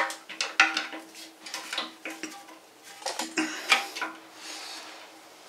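Irregular metallic clicks and scrapes of a screwdriver turning the flathead tank-to-bowl bolt inside a porcelain toilet tank, several clicks trailing a brief low ring.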